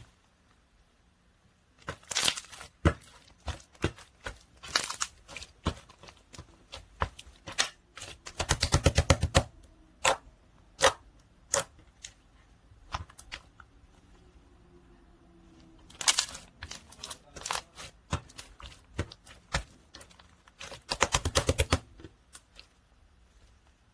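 Melted ice slime being squished and poked by hand, giving scattered sticky clicks and pops, with a quick run of rapid pops about nine seconds in and another near the end.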